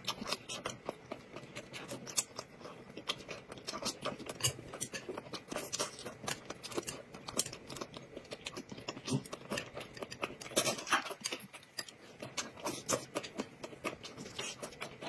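Someone eating braised pork belly: chewing, with many quick, irregular clicks and smacks from the mouth.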